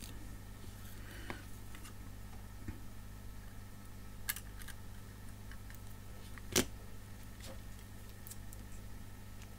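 A few light clicks and taps as a small LCD panel and its flex ribbon cable are handled and pressed into place on a circuit board, the sharpest click about two-thirds of the way through, over a low steady hum.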